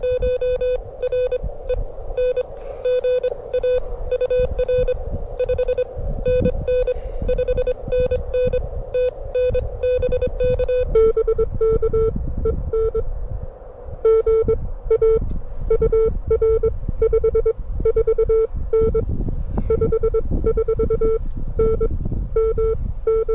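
Morse code (CW) tones from a ham radio transceiver, keyed at about 25 words per minute in fast dot-dash patterns. About eleven seconds in, after a brief pause, the tone drops slightly in pitch as a second station's signal takes over. A low wind rumble on the microphone runs underneath.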